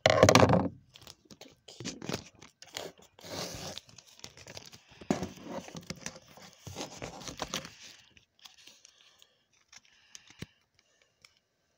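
Sticky tape pulled off the roll and torn, with crinkling and rustling as it is handled and pressed onto a gift package; the noise thins to faint scattered handling sounds after about eight seconds.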